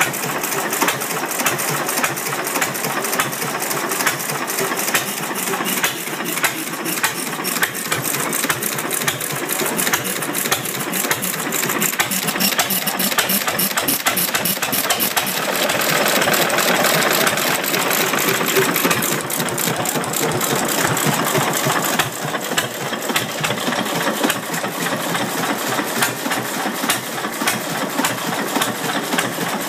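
Massey-Harris kerosene stationary engine running with a steady, even beat of firing and mechanical clatter. It fires on every stroke rather than hit-and-miss.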